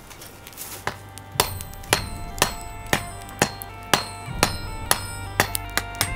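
Hand hammer striking a red-hot steel bar on a block of scrap steel used as an anvil, in even blows about twice a second: forging the first piece on the new anvil. Music plays underneath from about a second and a half in.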